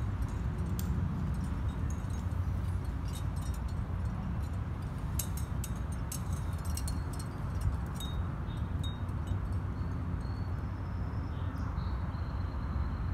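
Outdoor ambience: a steady low rumble with faint high clicks and a brief faint thin whistle near the end.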